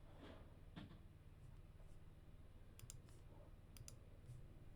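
Near silence: room tone with a faint steady hum and a few faint clicks of a computer mouse, around three seconds in and again a second later.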